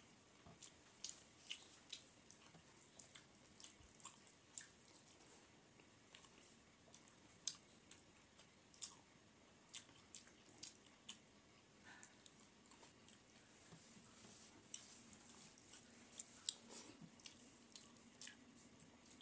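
Wet, sticky clicks and squelches of fingers mixing rice with curry on a metal plate, mixed with chewing and lip smacks, coming irregularly throughout.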